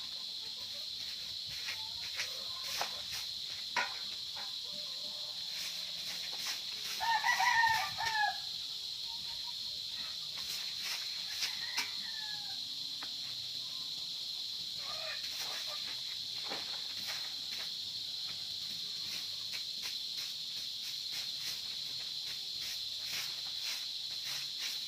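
A rooster crows once about seven seconds in, the loudest sound here, with a weaker chicken call a few seconds later. Around it are scattered short scratches of a stiff stick broom on dirt and leaves, over a steady high-pitched drone.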